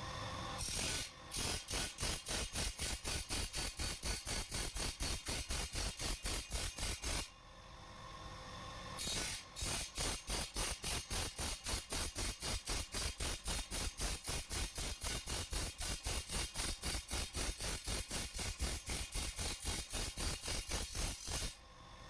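A power machine working the steel blade of a chaff cutter in rapid, even strokes, about six a second, in two runs with a short pause between, sharpening the edge and cutting its teeth.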